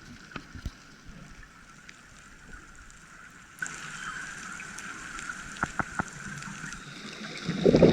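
Underwater reef ambience with sharp, scattered clicks, three close together about six seconds in: a juvenile emperor angelfish clicking. A louder low rushing sound starts near the end.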